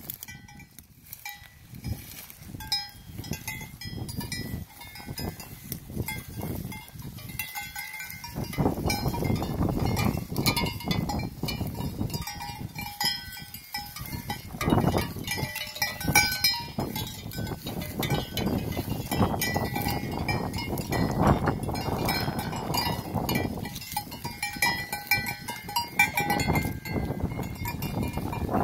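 Bells (cencerros) on grazing sheep clinking irregularly as the animals move about. A louder low rustling noise joins in about eight seconds in.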